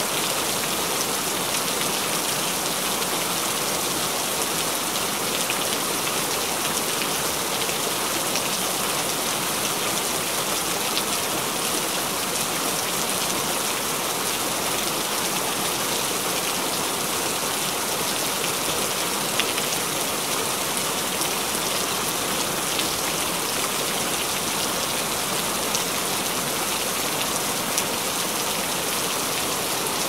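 Heavy rain falling steadily: a loud, even hiss with countless small drop impacts through it and no let-up.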